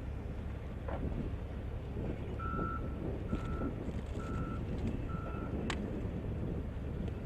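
A vehicle's reversing alarm beeping four times at one pitch, about one beep a second, over a steady low engine rumble, with a sharp click just after the last beep.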